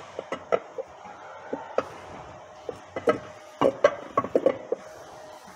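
Metal clinks and knocks as a transmission differential with its ring gear is handled and seated in the transmission case. A few scattered strikes come first, then a quick run of them from about three seconds in, some ringing briefly.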